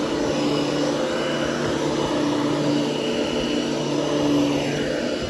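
A 13-inch Hoover HushTone upright vacuum cleaner running steadily on carpet, a continuous motor hum whose pitch wavers slightly as it is worked over the pile.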